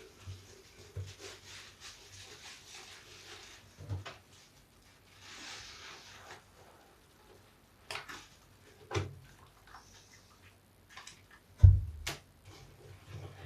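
A large soapy bath sponge being squeezed and kneaded by hand in soap scraps: soft wet squishing of lather, broken by scattered sharp squelches, the loudest near the end with a low thump.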